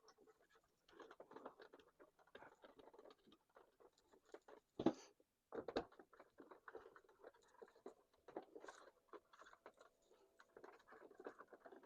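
Faint crackling and small clicks of a multi-conductor cable and plastic parts being handled at an indoor unit's terminal block, with a sharper click about five seconds in.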